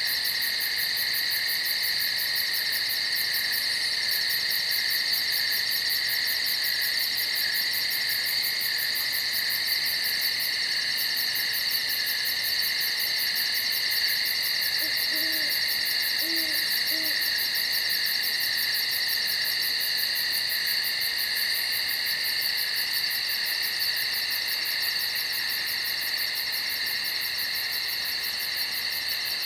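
A steady night chorus of insects trilling without a break, with an owl hooting three short times, faintly, about halfway through.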